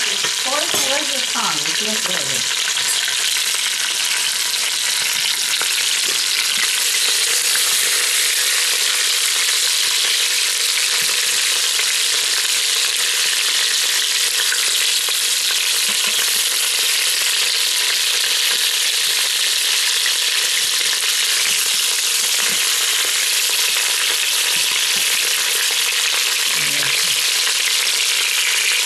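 Pork tails sizzling as they brown in hot olive oil in a pressure cooker pot: a steady, loud frying hiss while the pieces are turned.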